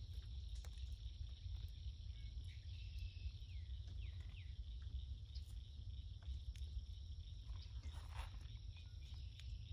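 Quiet garden ambience: a steady low rumble and a faint steady high-pitched drone, with a few faint falling chirps about three to four seconds in. Over it, light ticks and rustles of fingers working potting soil to plant bean seeds, and a paper seed packet rustling near the end.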